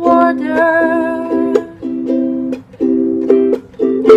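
Music: a ukulele strummed in a steady rhythm of chords, with a held sung note trailing off in the first second and a half.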